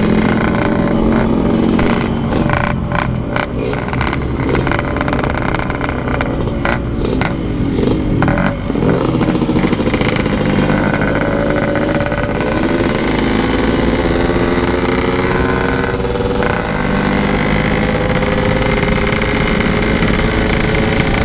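Yamaha RX-King 135 cc two-stroke single-cylinder engine running hard at speed, with several short throttle lifts and gear changes in the first eight seconds, then its pitch climbing slowly and steadily as it is held at full throttle.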